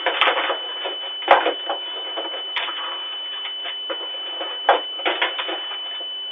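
Computer keyboard being tapped impatiently in scattered clicks, with two heavier knocks about a second in and near the end, over a steady high-pitched whine. The sound is thin and narrow, like a low-quality recording.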